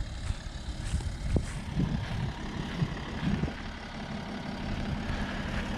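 The BMW X5 E70's diesel engine idling steadily, with a few short knocks scattered through it.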